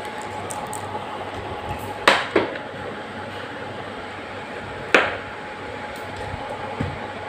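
Sharp clicks and clatters of a small plastic stick striking a hard tiled floor as a cat bats and pounces on it: two close together about two seconds in, a loud one about five seconds in and a fainter one near the end, over a steady background hum.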